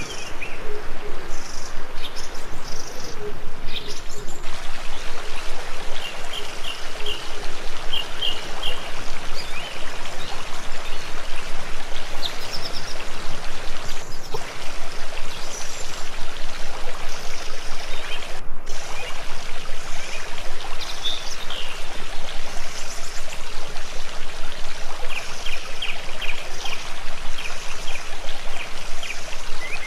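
Running water in a stone-lined channel making a steady rush, with short runs of small bird chirps several times.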